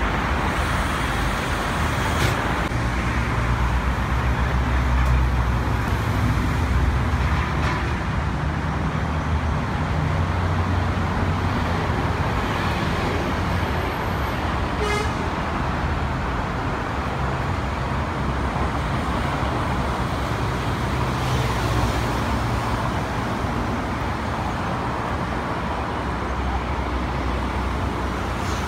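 Steady city traffic noise: a low rumble of road vehicles, with a few brief clicks.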